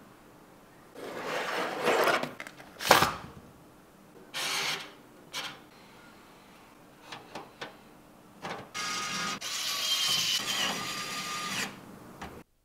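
Computer parts being handled and fitted: scraping and rustling, a sharp knock about three seconds in, scattered light clicks, then a longer stretch of rustling and scraping with faint squeaks near the end.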